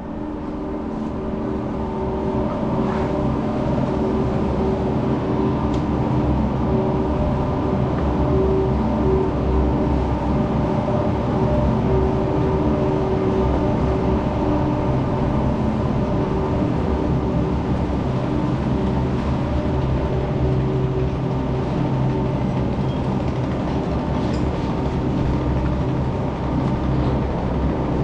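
Quad chairlift terminal machinery running: a steady mechanical hum with several held tones over a low rumble. It swells over the first few seconds as the listener moves into the station, then holds level.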